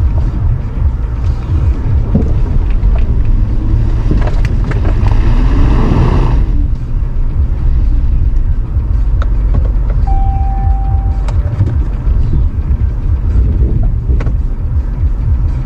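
Jeep Cherokee Trailhawk driving over a rough off-road trail: a heavy steady rumble of engine and tyres with scattered knocks, a louder rush about five to six seconds in, and a short steady beep about ten seconds in.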